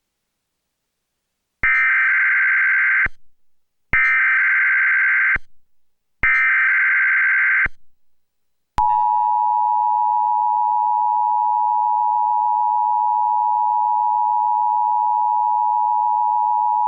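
Emergency Alert System SAME header: three identical bursts of shrill warbling digital data, each about a second and a half long, starting a Required Monthly Test relayed over Charter Spectrum cable. Then, about nine seconds in, the two-tone EAS attention signal (853 and 960 Hz) comes on and holds steady, with a faint hum underneath.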